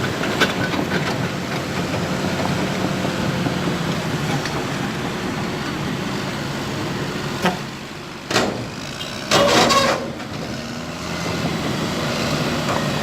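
Heavy diesel engine running steadily. Two sharp knocks and a short loud burst of noise come in the second half.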